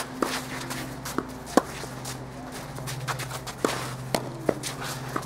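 Doubles tennis rally: a ball struck by racquets and bouncing on the court, heard as several sharp pops a second or so apart, the last one about four seconds in as a player lunges for a shot. Shoe scuffs and footsteps run between the hits, over a steady low hum.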